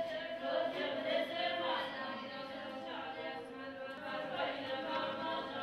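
A group of voices chanting together in long, held tones, several pitches sounding at once.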